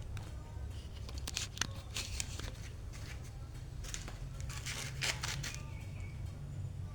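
Several short scraping and rustling sounds, the longest about four to five seconds in, over a steady low hum.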